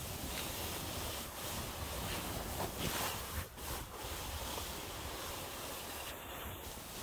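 Snowboard base sliding and scraping over snow on a descent, a steady hiss broken by two short lulls about halfway through.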